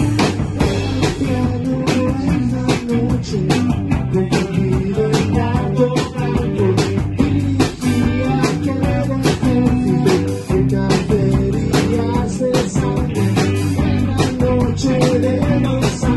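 A small rock band playing live in a rehearsal room: electric guitars over a drum kit keeping a steady beat.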